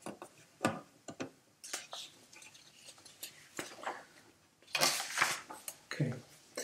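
Irregular clicks, taps and short rustles of things being handled on a desk close to the microphone, with the densest rustling a little before the end.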